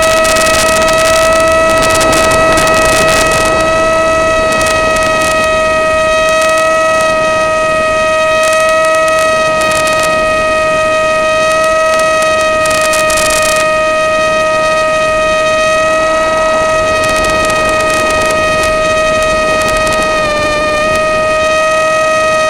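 Electric motor and propeller of an Easy Star RC plane, heard through its onboard camera, running with a loud, steady whine at one pitch that dips briefly about twenty seconds in. Gusty wind buffets the microphone, strongest in the first few seconds and again about twelve seconds in.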